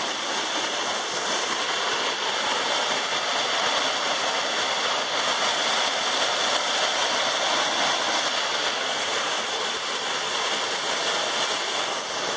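Waterfall pouring over rocks into a pool: a steady rush of falling water.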